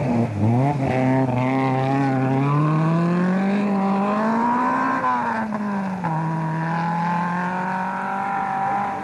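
Rally car engine running at high revs, its pitch climbing steadily for several seconds, then falling back over about a second and holding steady.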